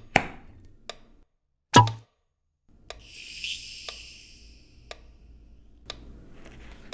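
A book shut with a single sharp thump about two seconds in, after a couple of light clicks. Then a brief hiss and light ticks about once a second.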